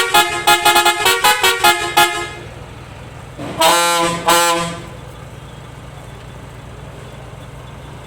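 A coach van's multi-tone horn sounds a quick run of short notes that changes pitch, ending about two seconds in. Two separate horn blasts of about half a second each follow near the four-second mark. After that the engine idles low and steady.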